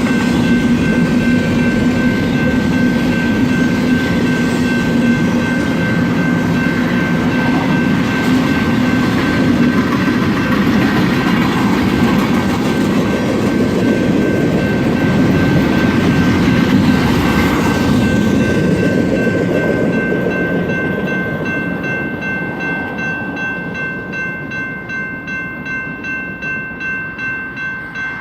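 Long BNSF freight train of empty intermodal cars rolling past: a dense rumble of wheels on rail with a thin, steady high tone over it. About twenty seconds in it grows quieter, and the wheels clatter over the rail joints in a regular rhythm.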